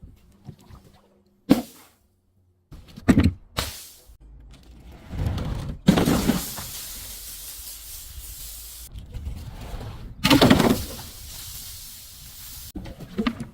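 Objects being smashed and crushed: a run of separate sharp cracks and crunches, about six in all, with a hissing, spraying noise lasting about three seconds in the middle.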